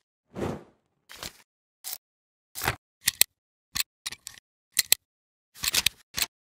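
Camera-shutter and film-advance sound effects: a run of about a dozen short, sharp mechanical clicks and snaps at uneven spacing, some in quick pairs, with dead silence between them.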